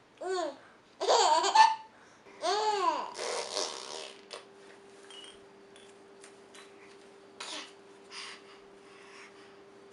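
A six-month-old baby laughing and squealing in several loud bursts over the first three seconds. After that come quieter scattered clicks and short sounds over a steady low hum.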